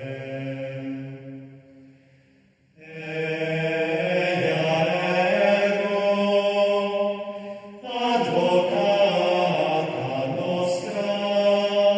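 Slow vocal chant with long held notes in phrases. It fades out about two seconds in and starts again shortly after, with another short break past the middle.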